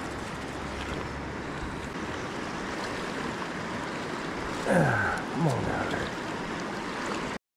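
Steady rush of a shallow river flowing fast over riffles. About five seconds in, two brief sounds slide down in pitch, one after the other, louder than the water.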